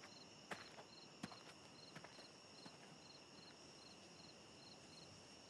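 Faint night ambience of crickets chirping, short high chirps about three times a second over a steady high insect trill, with a few soft clicks in the first couple of seconds.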